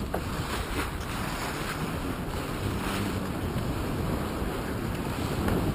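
Wind buffeting the microphone over the steady rush of sea water along a sailboat's hull while under way.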